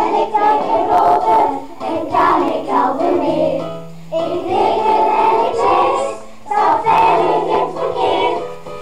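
A class of young children singing a song together in unison over accompanying music, in phrases with short breaks between lines.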